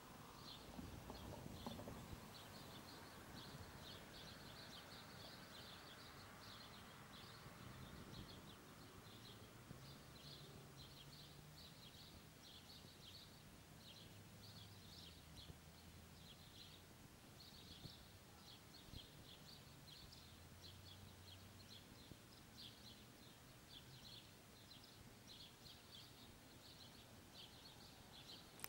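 Faint outdoor ambience: small birds chirping in quick, irregular bursts throughout, over a low hum that comes and goes.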